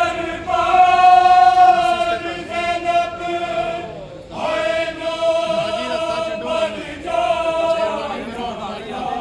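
Male voices chanting a religious lament in unison, long drawn-out notes sung in phrases that break briefly about four and seven seconds in.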